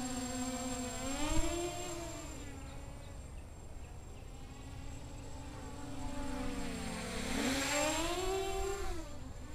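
Quadcopter with Emax 2204 2300 kV brushless motors and 6-inch Gemfan props in flight, giving a steady propeller buzz. The pitch rises about a second in and again near the end as the motors speed up, and the sound is loudest around eight seconds, when the quad is close.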